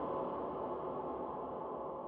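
A sustained ringing drone of many steady tones from an industrial techno sample, slowly fading.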